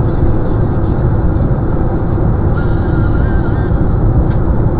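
Steady road and tyre noise from a car cruising at highway speed, heard from inside the cabin through a dashcam.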